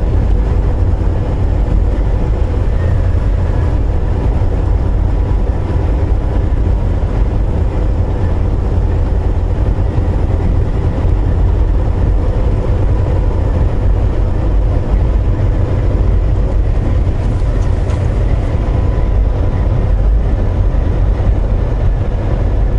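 Steady drone of a Volvo VNL860 semi truck driving, heard from inside the cab: engine and road noise, heaviest in the low end, with a faint steady hum above it.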